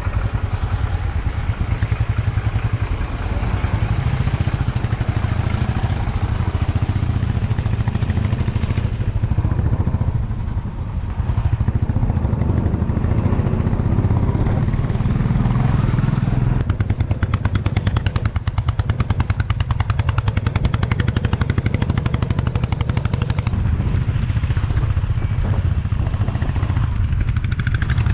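Royal Enfield Bullet's single-cylinder engine running at low road speed, a rapid even thudding beat, heard from the rider's seat on a rough gravel road. A rushing hiss over it fades out about nine seconds in.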